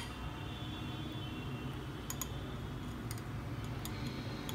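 A few light clicks of a steel spoon against a glass bowl as a potato patty is turned in thin flour batter, over a low steady hum.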